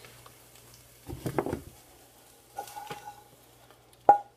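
Kitchen handling sounds as a nonstick frying pan and spatula are moved off the stove: a short shuffle of handling about a second in, then a sharp ringing clink of metal near the end. A low steady hum runs underneath.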